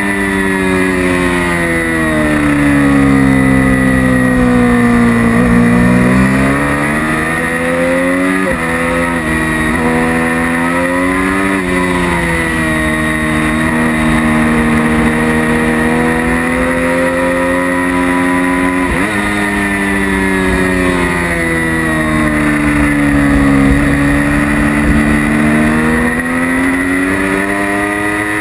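Sport motorcycle's engine heard from an onboard camera at track speed. The engine note sinks as the rider slows into corners and climbs again on acceleration, broken by quick jumps in pitch at gear changes, over a steady rush of wind on the microphone.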